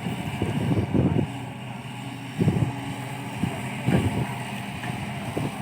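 Excavator's diesel engine running steadily, with a few short low thuds from the machine's work.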